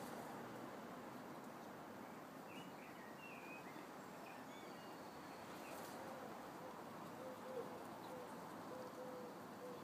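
Outdoor background noise with a few short bird chirps a few seconds in, then a pigeon cooing, a run of low, even coos repeated in groups through the second half.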